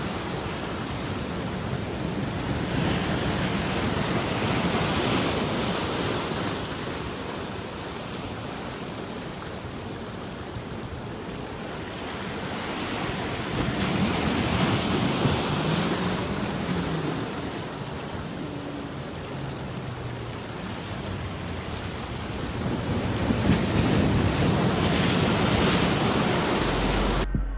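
Sea surf surging and breaking over shoreline rocks in a heavy swell: a steady rushing wash that swells loud and ebbs again three times, about every ten seconds, as each wave comes in. It cuts off abruptly near the end.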